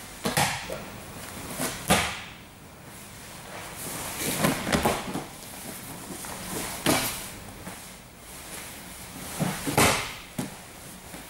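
Grappling on a padded mat: about five short bursts of thumping and rustling as bodies in cotton gis shift, roll and land on the mat.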